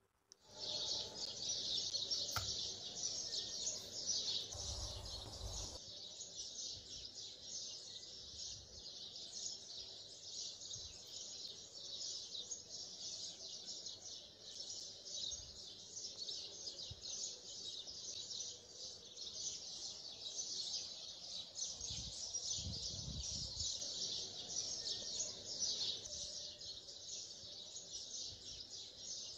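A dense, continuous chorus of many small birds chirping. It is joined by a few low bumps, once about five seconds in and again around two-thirds of the way through.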